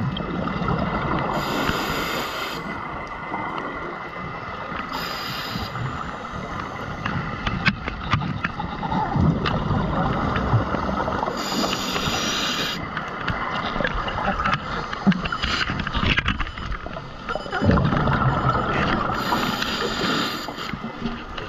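Scuba regulator heard underwater: four exhalations, each a gush of bubbles lasting about a second, roughly every five to seven seconds, over a steady rumble with scattered faint clicks.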